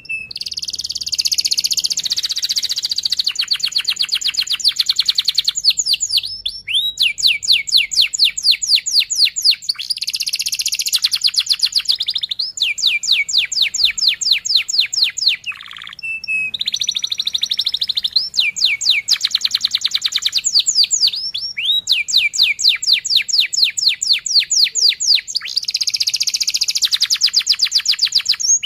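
Domestic canary singing a long rolling song ('ngerol'): phrases of fast, tightly repeated trill notes, some slower and some run together into a rapid buzz. The phrases change every few seconds, with brief breaks between them.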